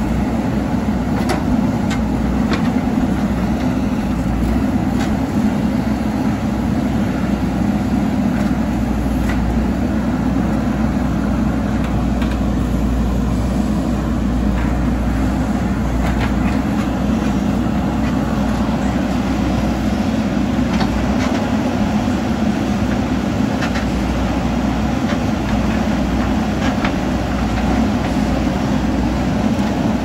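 Diesel engine of a heavy earthmoving machine running steadily under work, with light clicks and knocks now and then.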